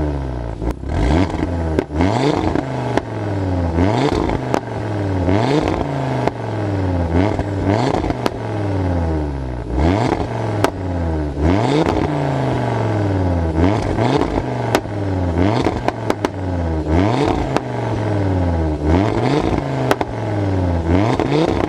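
Audi RS3 8V's turbocharged five-cylinder engine free-revved over and over, about one blip a second, through Milltek bypass pipes. Each rev is followed by pops and crackles as it falls back.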